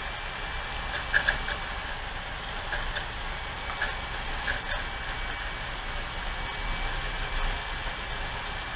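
Disk drives of a 1997 Dell Latitude XPi CD laptop working during a software install from CD. Short, high chirpy seek clicks come in small irregular clusters over a steady hiss.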